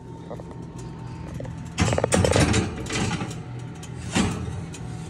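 Baking pan put into an oven: a clatter of metal about two seconds in as the pan goes onto the rack, then a single knock about four seconds in as the oven door shuts, over a steady low hum.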